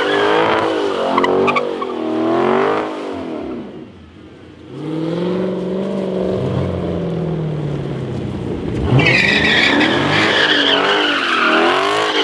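Dodge Charger doing donuts: the engine revs rise and fall with the throttle while the spinning rear tyres squeal on the asphalt. The tyre squeal drops away about four seconds in, leaving the engine revving on its own, and comes back loud about nine seconds in.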